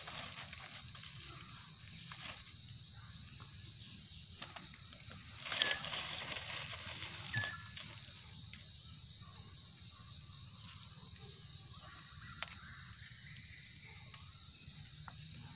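A steady high-pitched insect drone runs throughout, over scattered rustles and scrapes of a knife and hand working through dry leaf litter to dig mushrooms out of the ground. The louder rustles come about five and a half and seven and a half seconds in.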